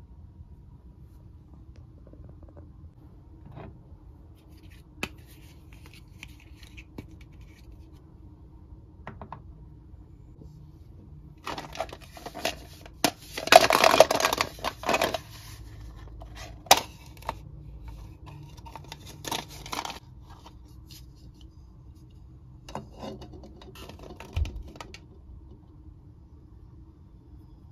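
Hard plastic Mr. Potato Head toy parts being handled: scattered clicks and taps of plastic on plastic, with a dense stretch of scraping and rustling a little before halfway that is the loudest part, then more sharp clicks and scrapes. A faint steady hum lies underneath.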